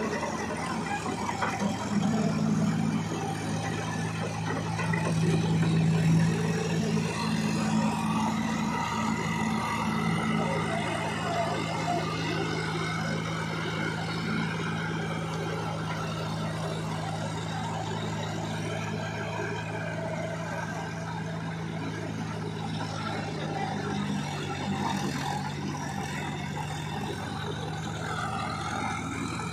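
Tractor diesel engines, a John Deere 5045D and a Massey Ferguson 246, running hard as they drive through deep paddy-field mud. The engine note is loudest over the first several seconds, then settles to a steady, slightly quieter drone.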